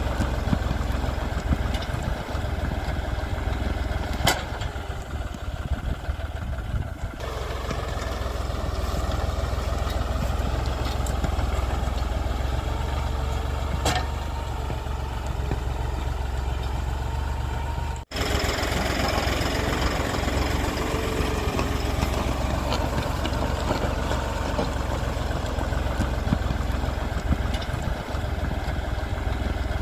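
John Deere 5310 tractor's diesel engine running steadily with a strong low hum and a few sharp clicks. The sound changes abruptly about 7 seconds in and drops out for an instant about 18 seconds in.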